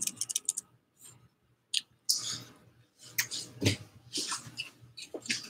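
Handling noise right at the microphone: irregular clicks, taps and cloth rustles over a faint steady low hum.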